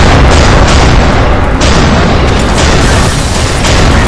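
Tank cannon fire and explosions: a series of heavy booms, roughly a second apart, over a continuous low rumble.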